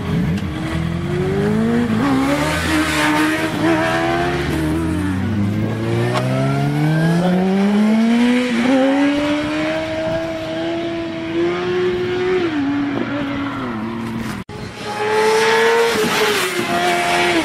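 Sport motorcycle engines revving hard and accelerating, the pitch climbing and then dropping back at each upshift. A brief dropout comes near the end, after which a bike passes at speed.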